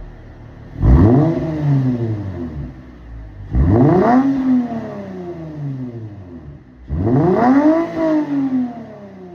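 Lexus IS350's 3.5-litre V6 blipped three times through its exhaust: each rev climbs quickly and then falls slowly back toward idle.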